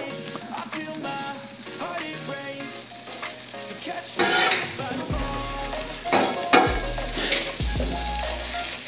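Sliced onions sizzling in butter-flavored oil on a steel flat-top gas griddle. From about four seconds in, a metal spatula scrapes across the griddle top several times, pushing the onions around.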